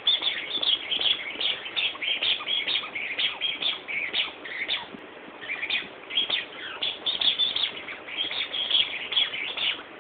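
Rubber squeaky toy ball squeaking over and over as a small terrier chews it: a rapid, irregular string of short high squeaks, several a second.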